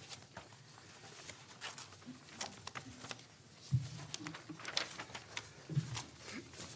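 Faint scattered clicks and light knocks of movement and handling in a quiet room, with a few heavier low knocks in the second half.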